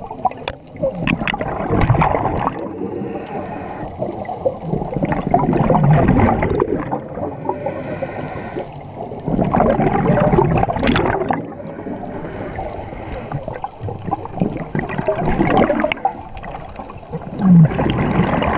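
Scuba regulator breathing heard underwater: exhaled bubbles gurgle loudly in a stretch every four to five seconds, with a quieter hiss between them as the diver inhales.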